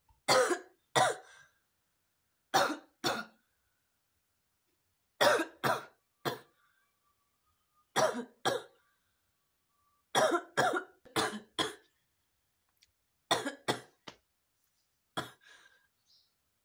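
A woman coughing deliberately in short sets of two to four sharp coughs, with silent gaps of one to two seconds between sets.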